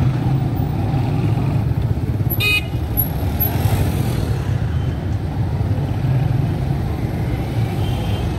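Busy street traffic: a steady rumble of motor vehicles running past, with one brief, high-pitched horn toot about two and a half seconds in.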